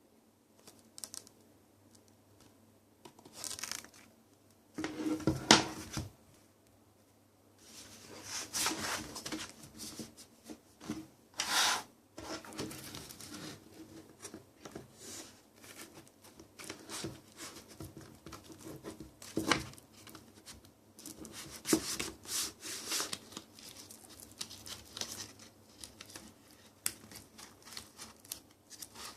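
Album packaging being handled: paper and plastic rustling, crinkling and scraping in irregular bursts, with a louder rustle about five seconds in and a short pause soon after.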